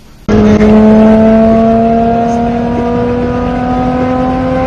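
Car engine pulling hard at high revs, heard from inside the car, its steady pitch climbing slowly as the car accelerates at speed. It cuts in abruptly about a third of a second in.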